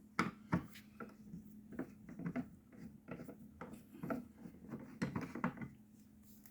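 Light, irregular clicks and taps of a small plastic speaker housing and its screws being handled and worked apart, over a faint steady low hum.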